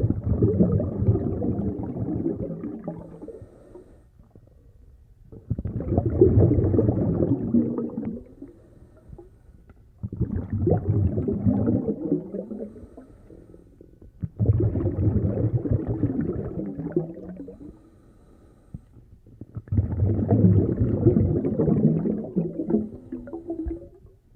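Scuba diver breathing through a regulator: five long, bubbling exhalations, each starting abruptly and fading over a few seconds, in a slow steady rhythm with quieter pauses between.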